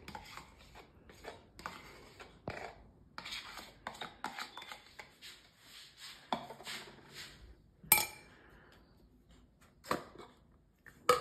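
Metal spoon scraping and tapping against a yogurt carton and a ceramic bowl while yogurt is spooned out, a series of light, irregular clicks and scrapes with a sharper clack about eight seconds in.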